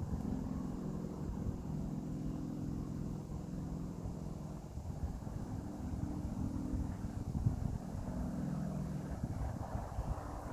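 Low, steady engine hum over a rumbling background.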